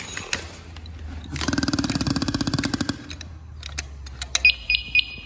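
A Scott SCBA air pack being turned on: about a second and a half in, a rapid rattling buzz sounds for about a second and a half as the cylinder valve is opened and the pack pressurizes, a normal start-up noise. Near the end come a few sharp clicks and several short high electronic beeps from the pack.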